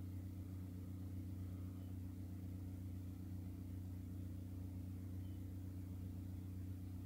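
Low, steady hum with no change in level.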